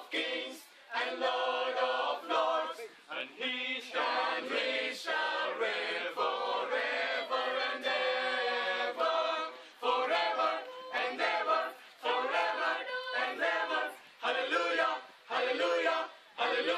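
A small group of young men and women singing together, in short phrases with brief breaks between them.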